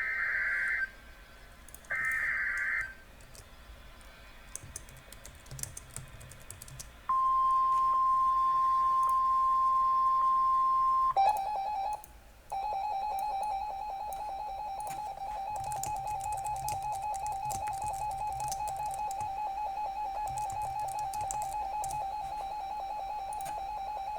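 Emergency Alert System tones: two short warbling data bursts, then a steady single-pitched alert tone for about four seconds, then a lower, rougher attention tone that runs on after a short break. Faint clicks are scattered throughout.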